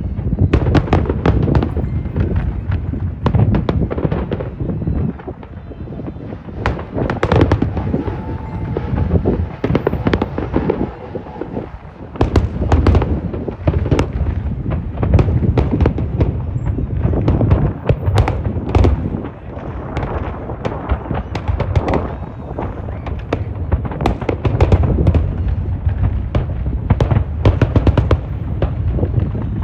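Fireworks going off in a continuous barrage: many sharp bangs and crackling reports over a deep rolling rumble of booms, with a brief lull a little before the halfway point.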